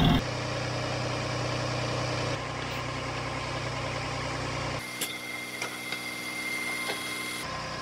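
Land Rover Discovery 3's TDV6 V6 diesel engine idling steadily on fresh oil, with no rattle to be heard. About five seconds in, the sound turns to a quieter steady hum with a faint high whine and a few light clicks.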